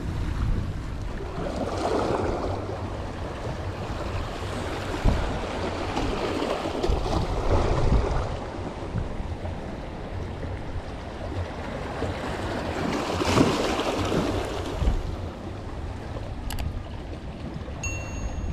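Wind gusting over the microphone with water washing at the shore, the noise swelling and easing every few seconds.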